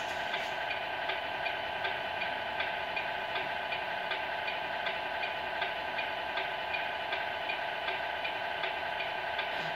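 Electronic sound from the Tamiya 1/14 Scania RC truck, a steady hum with regular ticks a little under three a second.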